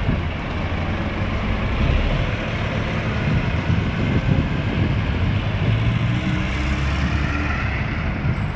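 Scania OmniCity city bus driving past and pulling away, its engine running steadily along with tyre noise.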